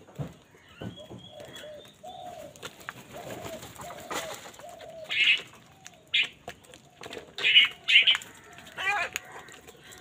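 House crows calling while feeding in a flock: softer low calls in the first half, then about five loud, harsh caws in the second half, with a few light knocks near the start.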